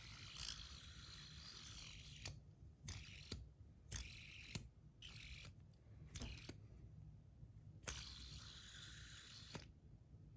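Bar fidget spinner flicked and spun several times: a click at each launch, then a short hissing whir from the bearing that lasts a second or two.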